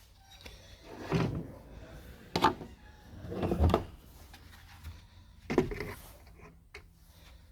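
Handling noises: a few sharp knocks and clicks, with a longer sliding rub a little before the middle.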